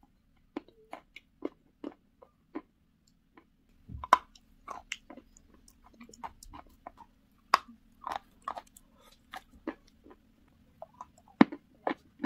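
Close-miked crunching and chewing of pieces of eating chalk: irregular sharp bites and crunches, loudest a little after four seconds and again near the end.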